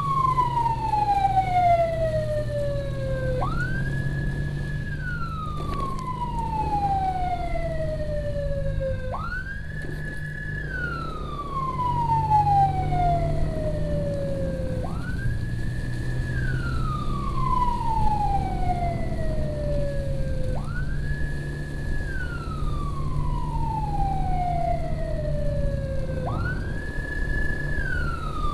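Emergency siren wailing in a slow repeating cycle: it sweeps quickly up to a high note, holds it about a second, then slides slowly down over about two seconds, starting again about every six seconds. Under it runs the steady drone of a motorcycle engine on the road.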